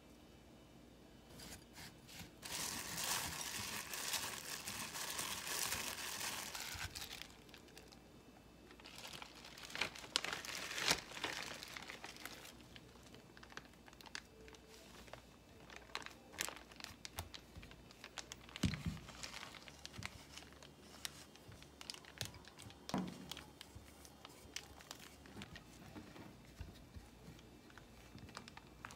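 A clear plastic zipper bag crinkling and rustling as dough is put into it, loudest in the first few seconds, then softer crinkles and a couple of dull knocks as a rolling pin flattens the dough inside the bag.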